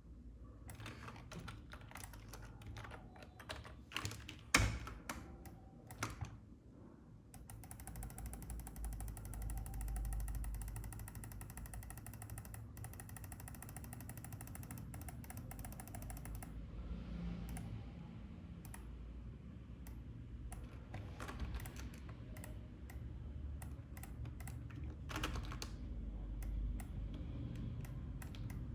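Computer keyboard keys and mouse buttons clicking irregularly, with a long run of rapid, evenly spaced ticking through the middle.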